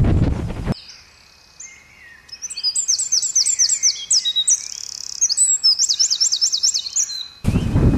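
Wind buffeting the microphone for under a second, then cutting off abruptly. A small songbird follows, singing quick runs of high repeated chirps with a held whistle between them. The wind noise returns just before the end.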